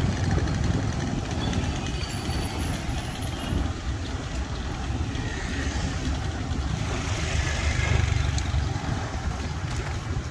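Street traffic heard from a moving e-bike: a steady low rumble of vehicle engines and road noise, swelling about seven seconds in as a vehicle goes by.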